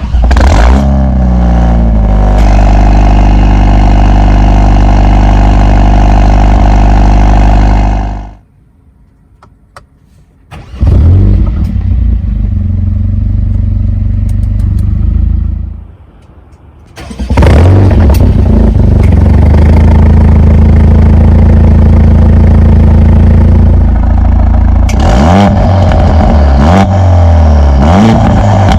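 Stage 2-tuned Mercedes-AMG A45 S 4MATIC+'s 2.0-litre turbocharged four-cylinder engine starting with a flare of revs and running steadily, stopping at about eight seconds. It is started twice more, and near the end it is revved in short blips.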